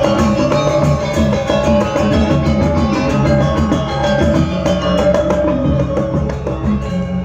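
Balinese gamelan ensemble playing a bebonangan-style piece: dense, rapid strikes of tuned bronze gongs and metallophones over drums.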